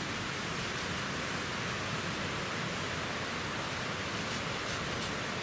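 A steady rushing hiss, and from about four seconds in, quick short rasps of a hand saw cutting through a live hazel stem.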